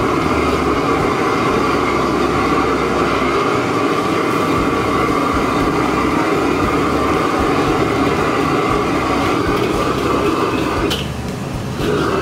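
Commercial gas wok burner running at full blast with a loud, steady roar. About 11 s in it dips briefly after a sharp clank, then comes back.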